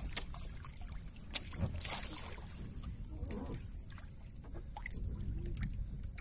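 Sea water sloshing and lapping against the hull of a small outrigger boat on choppy water, with scattered small clicks and knocks, one sharper click about a second and a half in.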